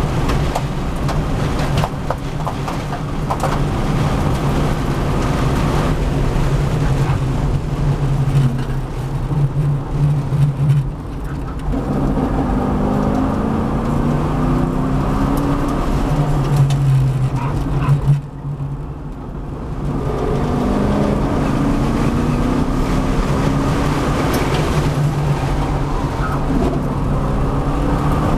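V8 Supercar race car engine heard from inside the cabin on a hot lap, running hard. It pulls up through the revs with rising pitch out of the slower corners, drops away briefly about eighteen seconds in, then picks up again.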